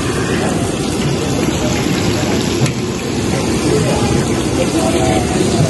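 Paneer pakoras deep-frying in a large wok of hot oil, sizzling with a steady, loud hiss.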